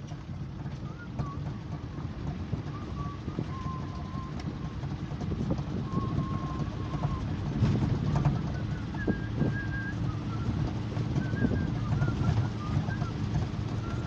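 Vehicle driving along a rough dirt road, heard from inside the car: a steady low rumble of engine and road noise with wind buffeting the microphone. Faint, thin, high tones come and go above it.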